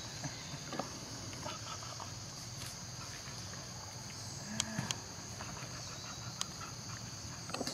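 Steady high-pitched drone of insects, with a few faint clicks and rustles in dry leaf litter.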